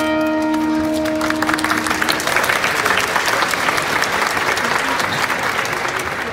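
The last chord of a live pop song rings out and fades over about the first two seconds, while audience applause starts and builds into steady clapping.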